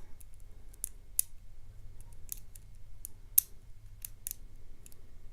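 Lock pick and tension wrench working the pins of a six-pin Yale euro cylinder lock: irregular sharp metallic clicks, clickety, the loudest about a second in and about three and a half seconds in.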